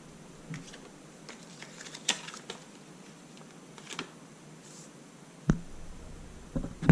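Scattered light clicks and taps, like small objects being handled, with a sharper knock near the end.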